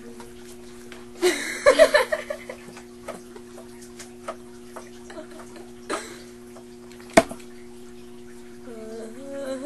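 A girl's loud burst of laughter about a second in, over a steady low hum. A single sharp smack later on, then a voice humming a tune near the end.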